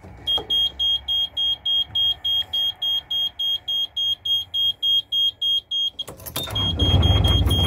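Beta Marine diesel engine's control panel alarm beeping about four times a second while the key is held at heat to warm the engine. About six seconds in the starter cranks briefly and the diesel catches and settles into a steady idle, the beeping going on over it.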